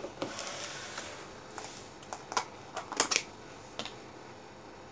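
Small plastic slime tubs being handled on a wooden tabletop, with a lid taken off: about half a dozen light clicks and taps, the loudest a quick pair about three seconds in.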